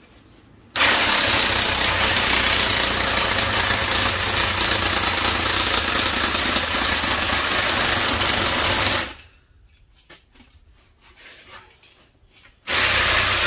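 Handheld power hammer with a chisel bit rattling rapidly against a copper-aluminum radiator coil, chiselling the copper bends off its end. It runs for about eight seconds, stops, then runs again in a shorter burst near the end.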